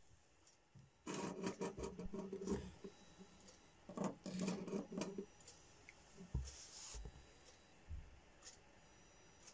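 Small DC hobby motors driven by an L293D motor shield, running in two bursts of about a second and a half, each a buzzing hum with rattling clicks. They are fed only 5 V from a laptop USB port, so one motor starts only some of the time. A few dull thumps follow near the end.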